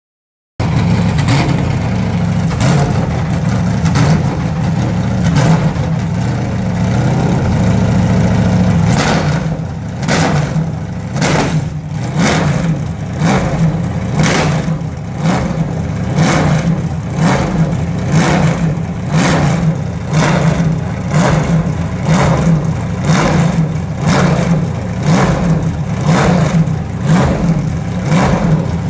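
Historic Formula 1 car engine running at low revs. From about nine seconds in, a sharp pulse repeats evenly, about four every three seconds.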